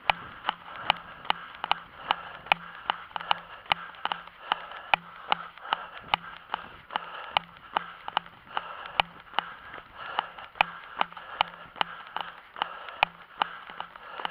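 Running footsteps on pavement, about two and a half strides a second, each landing a sharp knock, with a steady hiss between the steps.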